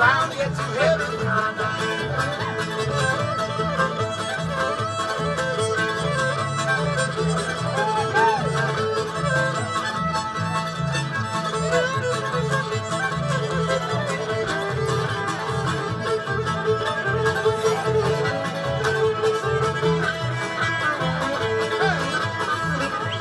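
Old-time string band playing live, with fiddle, banjo, guitar and upright bass; the fiddle carries the wavering melody over a steady strummed and plucked rhythm.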